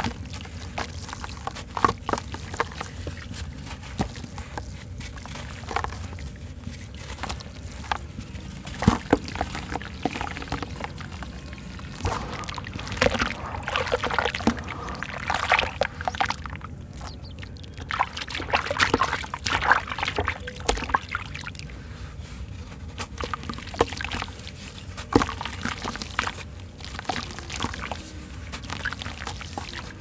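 Wet sand-cement ('sanment') blocks crushed and crumbled by hand into a tub of water: irregular crunches and crackles, with wet grit pouring and splashing back into the water. The crunching grows busier in two stretches around the middle, over a steady low background noise.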